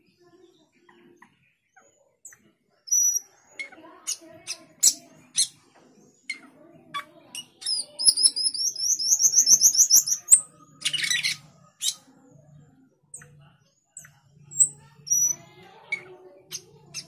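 Male Asian glossy starling calling: sharp high chirps and clicks, then a fast trill of rising high notes lasting about two seconds, a harsh squawk, and more scattered chirps.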